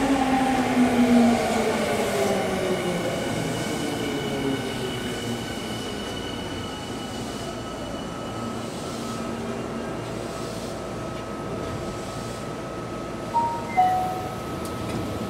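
Tokyu 5000 series electric train braking into a station: the whine of its inverter-driven traction motors falls in pitch as it slows, over rail and running noise. It then stands with a steady high-pitched tone. Near the end come two short chime tones, the second lower.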